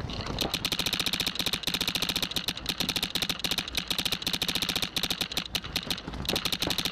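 Empire Axe electronic paintball marker firing a continuous stream of shots, about a dozen a second, in full-auto ramping fire, heard close up from a camera mounted on its barrel.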